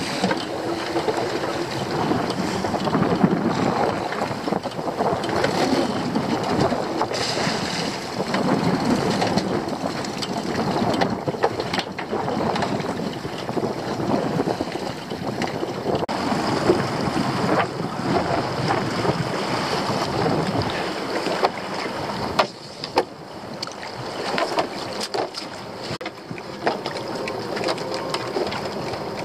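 Sea slapping and splashing against the side of a small open fishing boat, with wind on the microphone and scattered knocks and clatter as crab and lobster pots are handled on deck.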